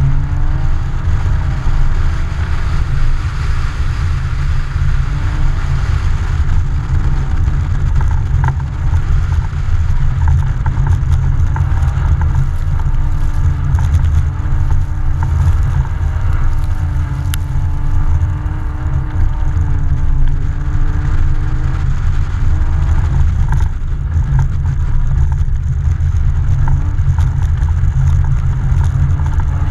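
Car engine revving up and down while the car slides on snow-covered ice. The camera is mounted outside on the car, so heavy wind rumble on the microphone runs under it throughout.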